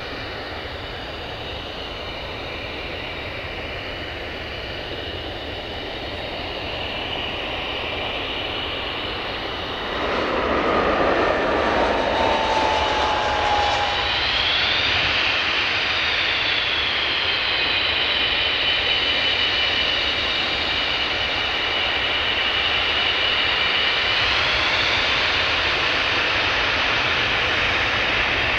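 Panavia Tornado's twin RB199 turbofan jet engines running with a high whine. About ten seconds in they grow suddenly louder, adding a broad roar and a falling tone, and the whine bends in pitch twice later on.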